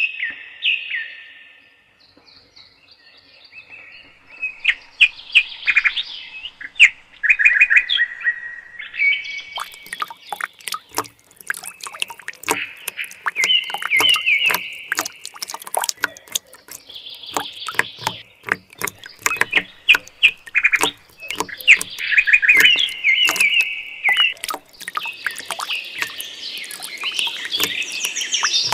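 Small birds chirping and twittering in quick repeated notes. From about a third of the way in, a dense run of sharp clicks joins them.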